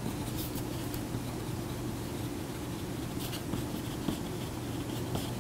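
Pen writing on paper: faint, irregular scratching strokes, a little busier about three seconds in, over a steady low room hum.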